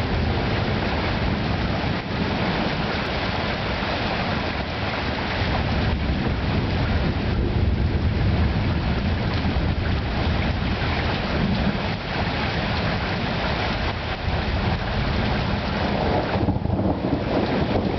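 Thunderstorm at night: a steady, loud rush of heavy rain and wind, with a fluctuating low rumble underneath.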